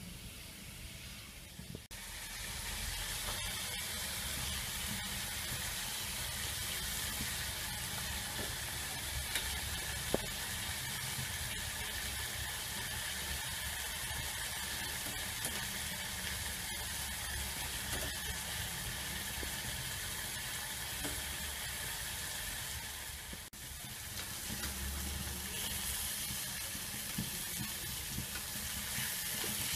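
Beef steaks and an onion slice sizzling as they fry in hot oil in a pan: a steady hiss with scattered small crackles and pops. It is quieter for the first couple of seconds, and the sizzle cuts out briefly about two-thirds of the way through before carrying on.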